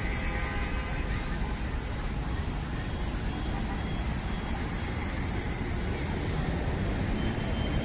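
Steady city street traffic noise from passing vehicles.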